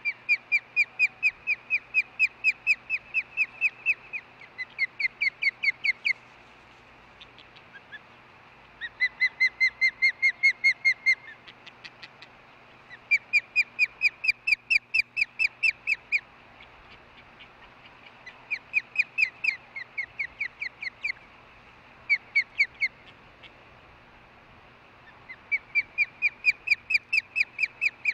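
Female osprey calling in repeated bouts of rapid high chirps, about four to five a second, each bout lasting a second or a few seconds before a short pause. This is the call heard as a buzzing-type sound.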